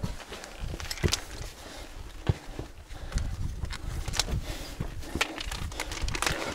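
Hiker's footsteps on a trail: irregular sharp steps about a second apart, over an uneven low rumble on the action camera's microphone.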